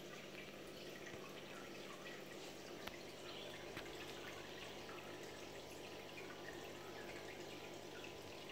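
Faint aquarium water sounds: a steady trickle from the tank's filter with many small drips, over a low steady hum.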